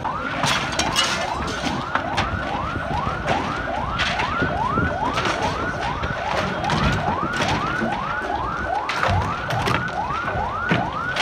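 Emergency vehicle siren sounding a fast yelp: a rising wail that cuts off and starts again about three times a second.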